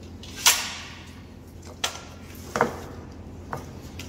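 Pneumatic nailer firing: a sharp shot with a short hiss of exhausting air about half a second in, followed by three lighter sharp knocks.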